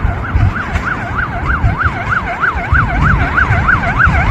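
Emergency vehicle siren in a fast yelp, sweeping up and down about three times a second, over a steady low rumble.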